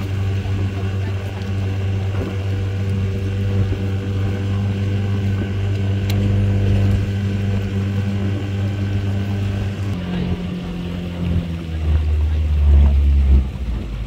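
Outboard motor of a small boat running steadily under way, its note dropping lower and growing louder about ten seconds in.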